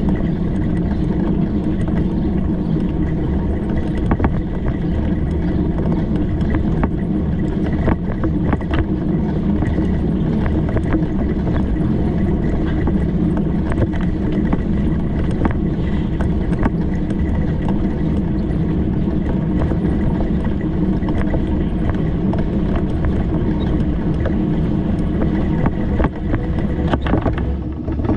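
Steady rumble of a bicycle riding along, with frequent small rattles and knocks throughout.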